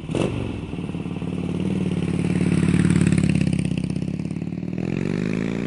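Motorcycle engine running with a pulsing beat, swelling in the middle, then revving up with a rising pitch near the end.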